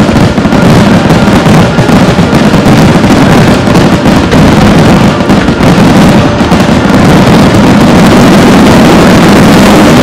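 Rapid-fire fireworks barrage (starmine), with dozens of shells and comets going off at once so that the bangs and crackle merge into one continuous, very loud rumble.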